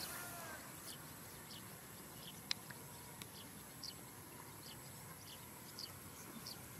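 Faint, short high-pitched animal chirps, irregular, about two a second, with a soft squeak just after the start and one sharper click about two and a half seconds in.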